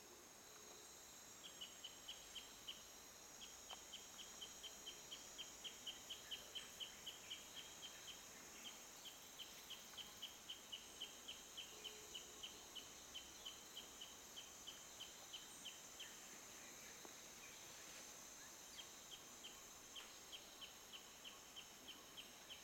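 Faint forest ambience: a steady high insect drone, with a regular series of short high chirps at about three or four a second that breaks off for a few seconds past the middle.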